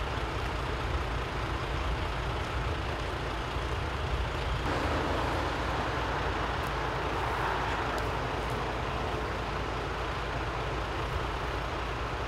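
Steady low rumble of vehicle engines and road noise. A louder rushing noise swells about four and a half seconds in and eases off by about eight seconds.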